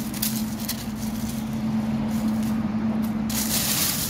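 Dry fallen oak leaves rustling and crackling as a hand rummages through the leaf litter, in several bursts with the loudest near the end, over a steady low hum.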